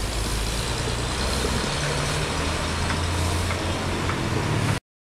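An engine running steadily with a low hum under a general noisy haze; the sound cuts off abruptly near the end.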